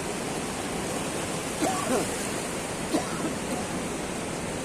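Rough sea surf rushing against a rocky shore, a steady wash of noise, with a few brief distant voices about two and three seconds in.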